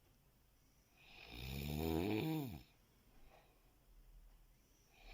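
A person snoring in their sleep: one long, deep snore of about a second and a half that drops in pitch as it fades, then a pause until the next snore begins at the very end.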